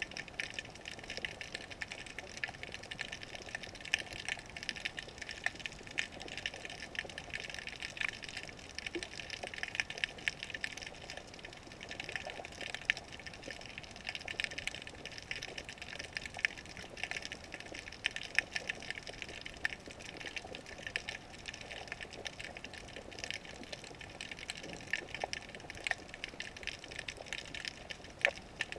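Underwater ambience picked up by a GoPro in its waterproof housing: a muffled water hiss with a dense, irregular crackle of tiny clicks.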